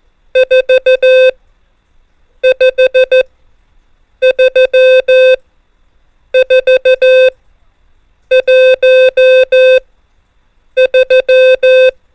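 Morse code (CW) tone sending numbers: a single steady beep, medium in pitch, keyed on and off in dots and dashes. The digits come in six groups of five elements each, about one digit every two seconds, with silent gaps between them.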